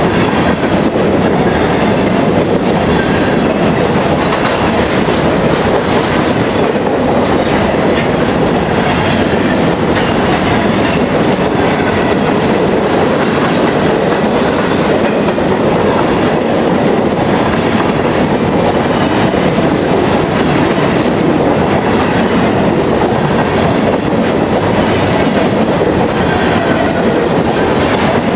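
CSX freight train of covered hopper cars rolling past at close range: a loud, steady rumble of steel wheels running on the rails, unchanging throughout.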